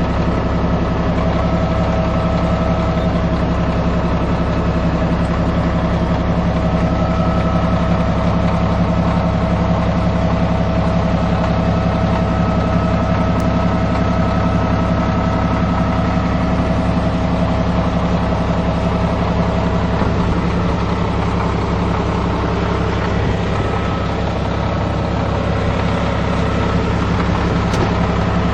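Caterpillar D6C bulldozer's diesel engine running steadily, easing off slightly about two-thirds of the way through before picking up again.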